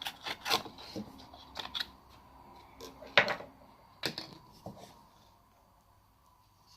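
Irregular clicks and knocks, the loudest about three seconds in and another about a second later, dying away to near quiet before the end.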